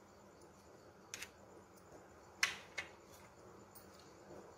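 A table knife spreading mango puree over a soft cake on a plate, heard as a few light clicks of the blade against the plate, the sharpest about two and a half seconds in.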